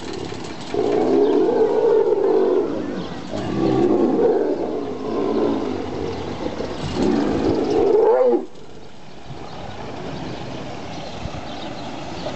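Two tigers snarling and growling at each other in an aggressive face-off, a run of rising and falling calls that stops suddenly a little after eight seconds in.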